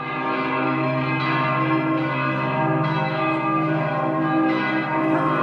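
Church bells ringing, several at once in a continuous overlapping peal.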